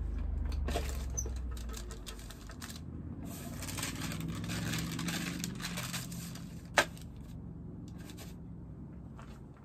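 Parchment paper rustling and small clicks and knocks as pieces are handled on the open plates of a waffle iron, with one sharp click a little under seven seconds in.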